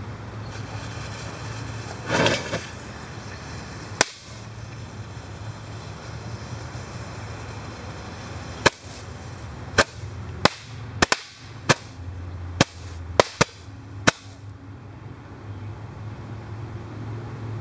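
A firework going off: a short hiss about two seconds in, then a string of about a dozen sharp bangs, irregularly spaced and bunched toward the middle, before it stops.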